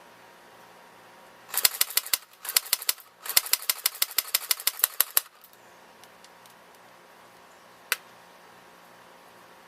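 Airsoft H&K MP5 N replica firing three rapid bursts of sharp clicks, the last and longest lasting about two seconds, then a single sharp click a few seconds later.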